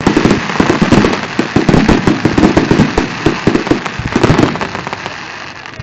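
Fireworks display: a dense, rapid barrage of bangs and crackling from bursting shells, easing a little near the end.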